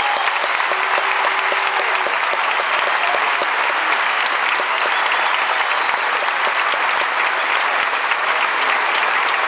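A large stadium crowd applauding steadily, thousands of hand claps merging into a continuous wash of sound.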